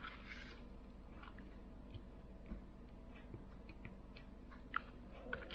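Faint, scattered small clicks and ticks of tools and tiny parts being handled during a smartphone's reassembly, over a low steady hum.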